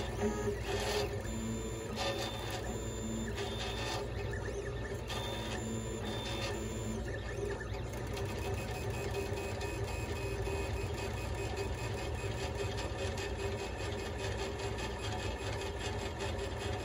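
Monoprice MP Select Mini V2 3D printer printing: its stepper motors whine in short tones that start and stop as the print head and bed move, over a steady hum. From about eight seconds in, the moves come in quick, short strokes.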